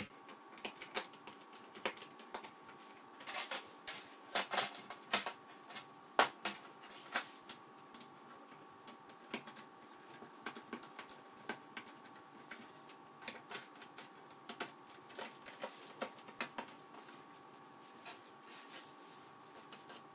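Irregular small clicks and taps of a screwdriver turning screws into a laptop's plastic bottom cover and of fingers handling the case, with a faint steady tone underneath.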